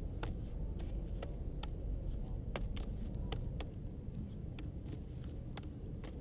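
Juggling clubs slapping into the jugglers' hands as two people pass them back and forth: sharp, irregularly spaced clicks, about two a second, over a low steady rumble.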